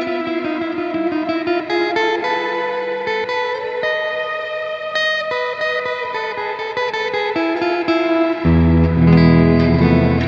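Electric guitar played through a Strymon Cloudburst ambient reverb pedal: a run of picked single notes that ring on and overlap in a wash of reverb. About eight and a half seconds in, a louder, fuller chord with deep low notes comes in and keeps ringing.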